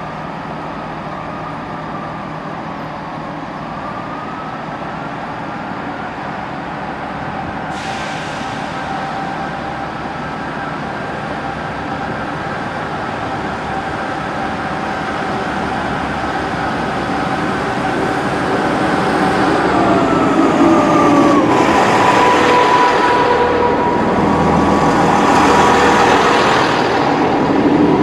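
Class 158 diesel multiple unit pulling away and drawing closer, its diesel engines and transmission giving a steady whine that grows louder. About 20 seconds in the whine drops in pitch as the unit passes. A higher steady whine and the rushing rumble of the train on the track follow.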